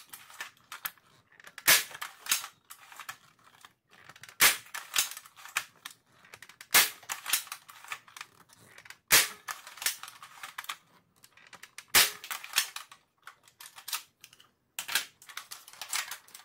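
Spring-powered Nerf Longshot fitted with a Jet Blaster Omni kit and 10 kg spring, firing full-length Elite darts through a chronograph. There are six sharp shots, about one every two and a half seconds, and each is followed by a short rattle of smaller clicks.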